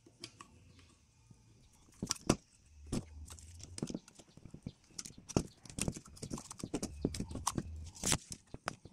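Irregular clicks and knocks of hands working the corner clips of a plastic cap off an EGR valve and handling the parts.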